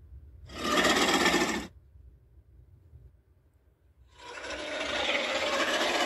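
Vastatosaurus rex creature sound effects: a short call about half a second in, lasting about a second, then a longer call that starts about four seconds in and carries on.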